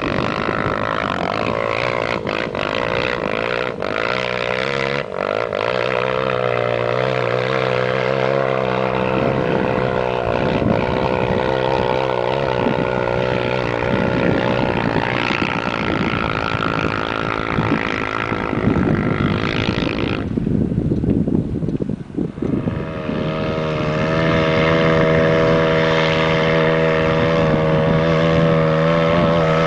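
Suzuki LT-R450 quad's single-cylinder four-stroke engine running, its pitch rising and falling with the throttle. The sound drops away briefly about twenty seconds in, then holds a steadier, higher note near the end.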